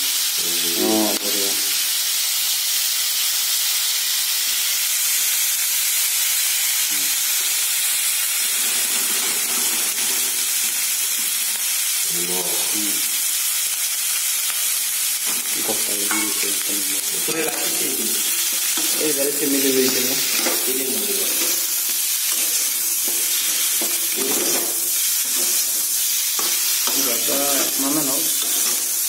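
Pork pieces sizzling steadily in hot oil in a wok, with a spatula stirring them now and then.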